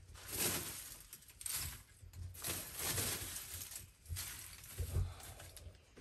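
Lumps of charcoal crunching and clinking as they are scooped by hand from a heap and dropped into a burning brick furnace. The sound comes in several short rustling bursts, with a few soft low thumps between them.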